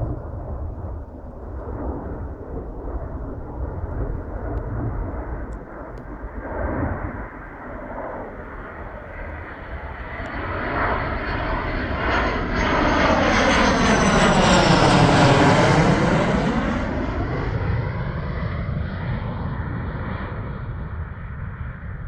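MiG-29AS fighter's twin Klimov RD-33 turbofans on landing approach: the jet noise builds, peaks as the aircraft passes about two-thirds of the way through, with a high whine falling in pitch, then fades.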